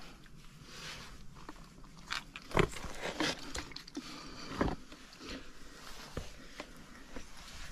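Scuffs and knocks of a climber's boots and hands against rock, with rustling grass; two sharp knocks stand out, about two and a half and about four and a half seconds in.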